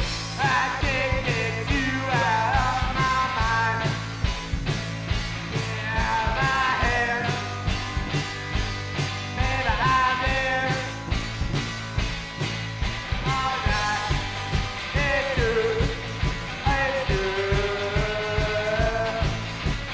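A live rock and roll band playing: electric guitar, electric bass and drum kit with a steady beat, and a man singing lead vocals over them.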